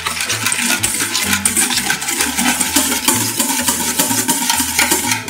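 Wire balloon whisk beating a matcha mixture in a stainless steel bowl: fast, steady splashing and scraping with many small metallic clicks of the wires against the bowl, as the mixture is whipped toward a soft, fluffy foam.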